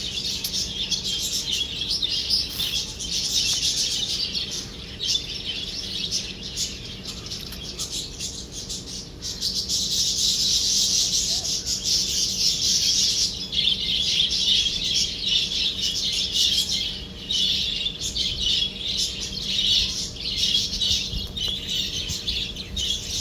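Birds chirping in a dense, continuous high chorus, thickest around the middle.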